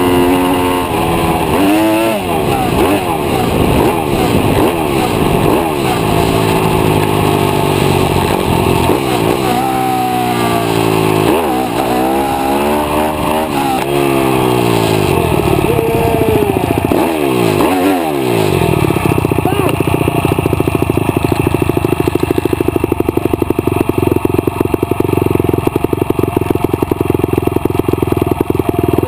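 YCF pit bike's single-cylinder four-stroke engine revving hard, rising and falling in pitch through gear changes at racing speed. About eighteen seconds in the revs drop away and the engine settles into a steady idle.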